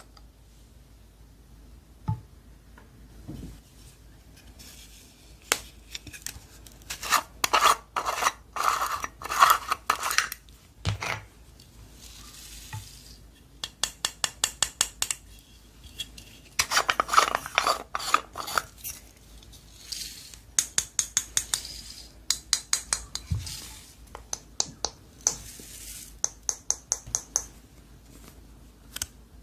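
Slime being worked and pressed, giving bursts of rapid wet clicks and pops with short quieter pauses between.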